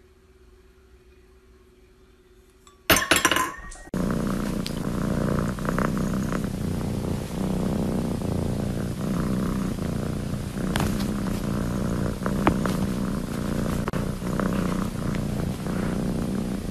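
A domestic cat purring steadily from about four seconds in, a long-haired seal-point cat lying on a person's chest. Just before it, about three seconds in, comes a brief loud noise of about a second.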